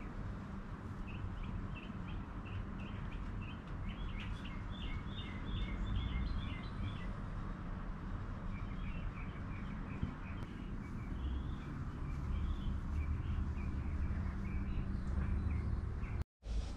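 Small birds chirping in quick runs of short, high notes, with two main runs separated by a short gap, over a steady low rumble.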